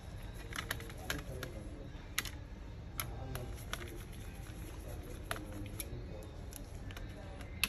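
Irregular light clicks and taps of a small screwdriver and gloved fingers on a laptop's motherboard as the processor fan's screws are undone, over a low steady hum.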